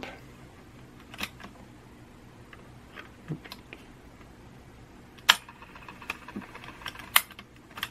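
Small scattered clicks and taps of fingers handling an opened cassette Walkman's circuit board, wires and a potentiometer, with two sharper clicks in the second half. A faint high whine is present for about two seconds near the end.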